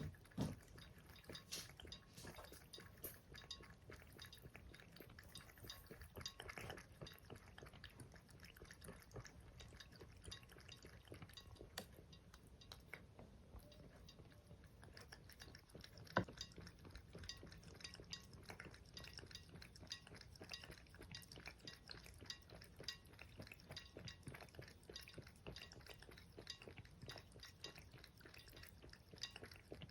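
House cat lapping water with its tongue: faint, quick wet ticks many times a second, with a couple of sharper clicks near the start and about sixteen seconds in.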